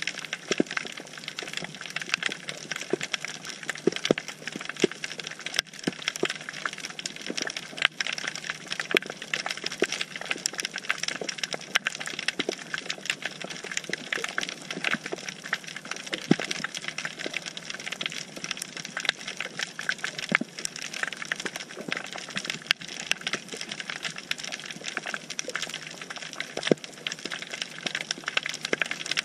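Underwater crackling: a dense, irregular run of sharp clicks over a steady hiss, the reef crackle of snapping shrimp on a rocky seabed, picked up through a camera's underwater housing.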